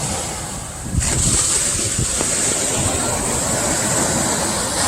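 Atlantic surf: a wave breaks about a second in and its wash hisses on, with wind rumbling on the microphone.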